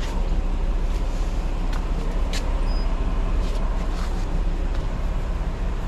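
Bus diesel engine idling with a steady low rumble, with a few light clicks over it.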